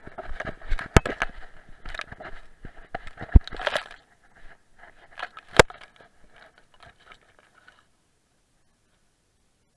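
Grass scraping and crackling against a dog-worn camera as the dog pushes through tall grass, with a few sharp knocks of the camera being bumped. The noise dies away about eight seconds in.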